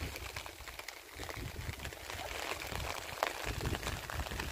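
Light rain pattering in soft, irregular ticks over a low rumble, with one sharper tick about three seconds in.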